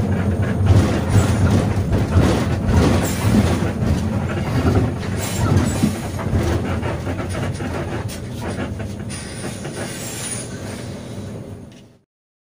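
Running noise of a moving bus: low road and engine rumble with rattling knocks, slowly fading and then cutting off near the end.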